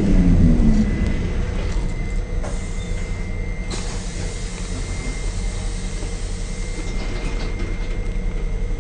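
Vintage A30 tram's electric traction motors whining down in pitch as the tram slows, fading out about a second in, followed by a steady low rumble of the car rolling on the rails with a fast, even pulsing.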